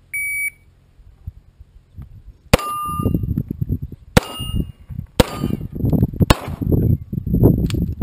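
An electronic shot timer gives a short start beep, then a pistol fires four loud shots roughly a second apart. The steel target plates ring with a clang after the hits.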